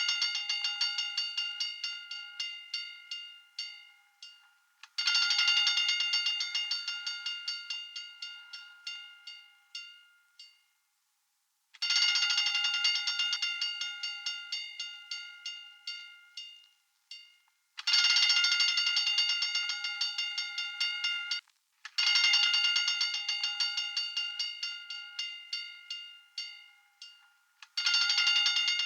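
Hand-cranked fire alarm bell ringing in repeated bursts of rapid metallic strikes. Each burst starts fast and loud, then its strikes slow and fade over a few seconds before the next burst begins.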